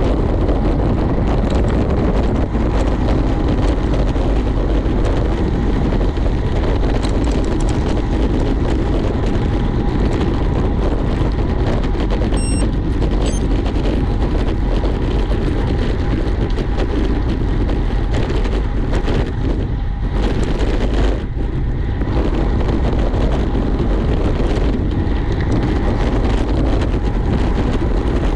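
Wind rushing over a road bike rider's camera microphone at riding speed: a loud, steady rush that dips briefly twice about two-thirds of the way through.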